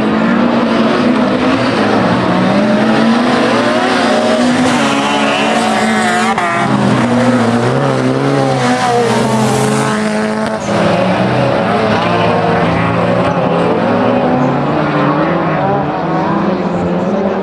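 Several autocross cars racing on a dirt track, their engines revving up and down as they accelerate and lift off through the corners, several engines overlapping at once.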